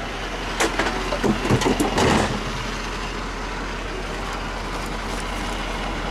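Collection truck engine running steadily, with a burst of clattering and thuds about a second in as yard waste goes into the truck's rear hopper.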